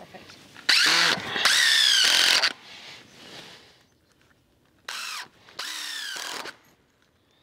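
Cordless impact driver driving screws into a pressure-treated timber board: four runs of the motor in two pairs, each a short spurt then a longer run, the pitch rising and falling as each screw goes in.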